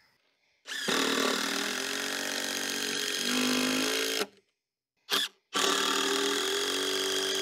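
Cordless power driver running twice in long runs, starting about a second in and again about five and a half seconds in, driving long screws into wooden joists. Its pitch shifts partway through each run as the load on the motor changes.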